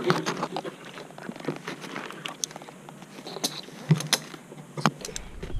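Metal climbing hardware clinking, carabiners and a rope device knocking together, with rope and harness rustling as a climber handles his line. There are scattered light clicks and a few sharper ones about four and five seconds in.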